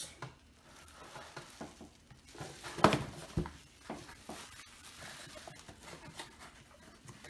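Light handling noises: soft rustles, with a sharp knock about three seconds in and a smaller one about half a second later.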